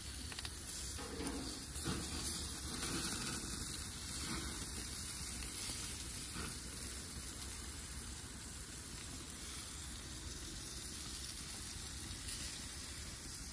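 Bacon-wrapped duck breast pieces sizzling steadily on a gas grill, with bacon fat dripping onto the burners and flaring up.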